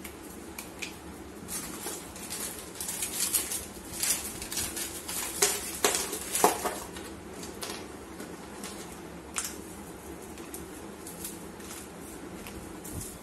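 Oreo biscuits being snapped and crumbled by hand into a plastic bowl: irregular crisp cracks with pieces dropping, most of them between about two and seven seconds in.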